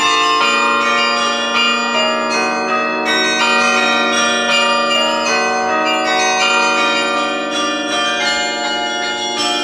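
The Sather Tower carillon being played: its tuned bronze bells are struck in a melody, each note ringing on and overlapping the next. A low bell comes in about half a second in and keeps sounding under the higher notes.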